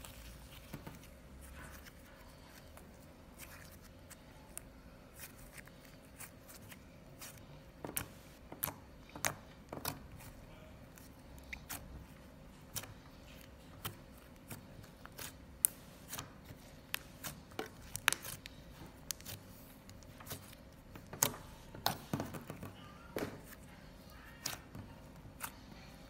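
Green slime with chocolate sprinkles mixed in being kneaded and squeezed by hand, giving irregular sharp clicks and pops. The clicks are sparse at first and come much more often from about a third of the way in.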